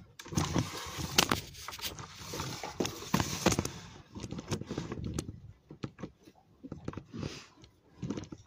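Crinkling and rustling of wrapping paper and fabric being handled, dense with sharp crackles for the first few seconds, then thinning to scattered clicks and short rustles.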